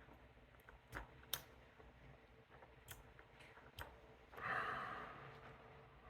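Several small, sharp clicks and taps from handling the lock cylinder and its parts, followed about four and a half seconds in by a breath out lasting about a second.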